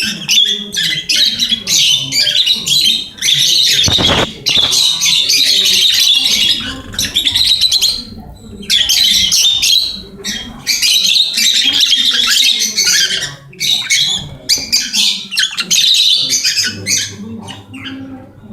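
Rosy-faced lovebird chatter: long runs of rapid, high, scratchy chirps and squawks with brief pauses, and a single thump about four seconds in.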